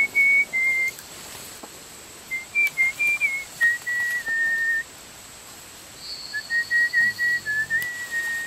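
A person whistling a tune: one clear whistled note stepping from pitch to pitch, in three short phrases with pauses between.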